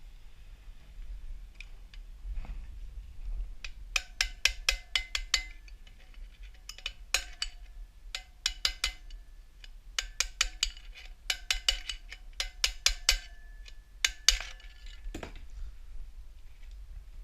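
A hammer striking metal, as when knocking a wheel bearing through a motorcycle hub with a drift. The blows come in quick bursts of several ringing strikes each, with short pauses between the bursts.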